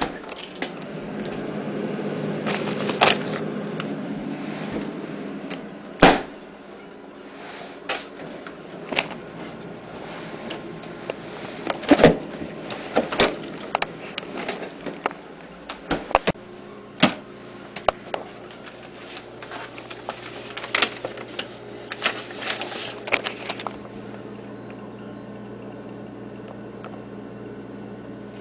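A refrigerator door opened and things inside the fridge handled and moved: a string of scattered clicks and knocks, two of them sharper and louder, over a rustling start. A steady low hum runs under the second half.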